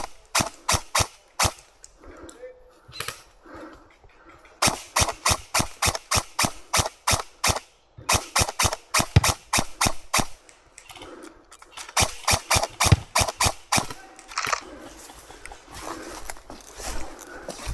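Airsoft guns firing rapid strings of sharp cracks, about four to five shots a second, in several bursts with brief pauses between them.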